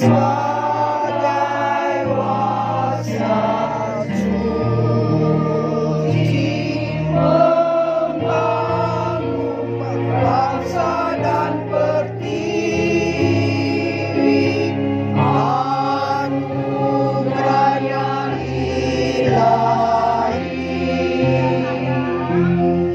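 Women's choir singing a song in parts, voices wavering in vibrato over held low accompaniment notes that change every second or two.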